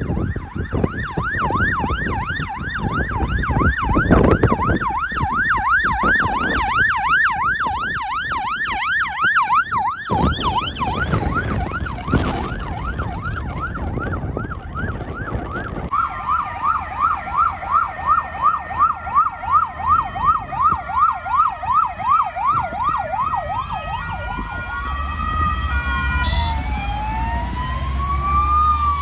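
Emergency vehicle sirens. A fast yelp sweeps up and down about four times a second and fades after about ten seconds. Another fast yelp comes in at about halfway. Near the end, slower wailing sweeps rise and fall and overlap one another, over the low rumble of a vehicle engine.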